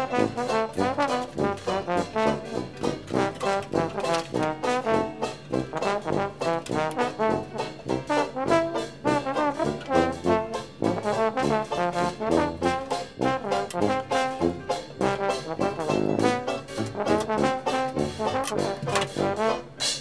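Traditional jazz recording: a brass-led band playing over a steady beat.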